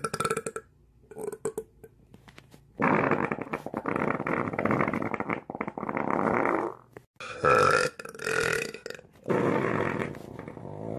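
A person burping: after a quiet pause, a run of about five long, drawn-out burps, starting about three seconds in.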